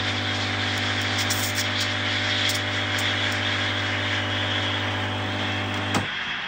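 Nuova Simonelli Oscar espresso machine pulling a shot and steaming milk at once: the pump's steady hum runs under the hiss of the steam wand in a stainless pitcher of milk. The pump hum cuts off about six seconds in, the end of the shot, and the steam hiss carries on.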